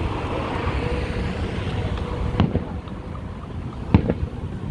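Two distant fireworks bursts: sharp bangs about a second and a half apart, over wind noise on the microphone.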